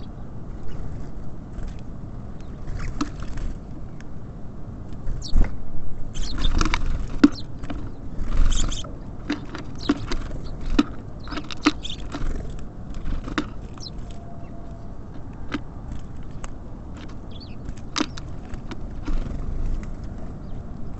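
Small birds at a feeder: scattered sharp taps and knocks of pecking and landing, with a few brief chirps, busiest in the middle. Under them runs a steady low rumble.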